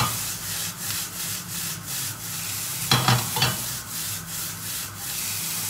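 Hokkien noodles in sweet soy sauce sizzling in a hot frying pan as they are stir-fried with a wooden spatula: a steady sizzle with quick, even stirring strokes, and two louder scrapes of the spatula against the pan about three seconds in.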